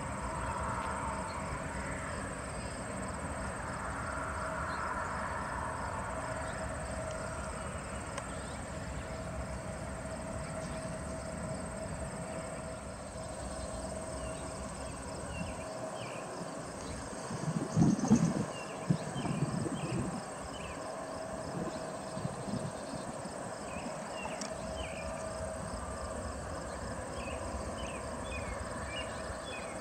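Insects calling in a steady, finely pulsing drone over a low rumble, with a brief louder low noise a little past halfway.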